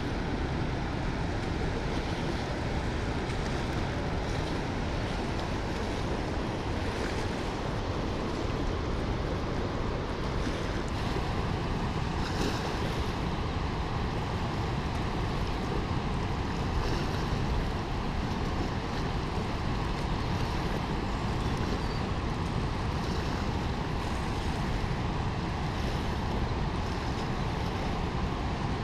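The Rhine Falls: a steady, dense rush of a large mass of falling and churning water, heaviest in the low end, with no break or change.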